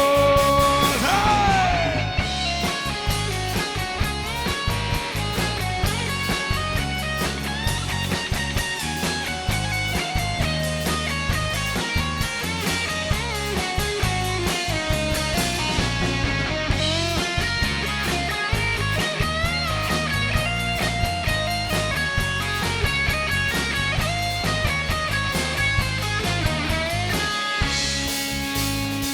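Instrumental break of a rock song: a lead guitar playing bending melodic lines over bass and drums, with no vocals.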